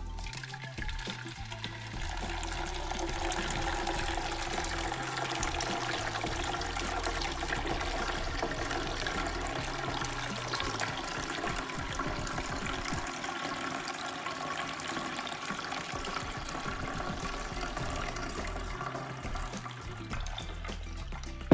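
Blended tiger-nut milk (horchata de chufa) pouring steadily through a metal mesh strainer into a plastic jug, starting about a second in, with background music.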